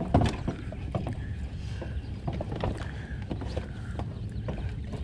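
Steady low rumble of wind and water around a small boat, with scattered light clicks and taps as a baitcasting reel is cranked and the rod handled.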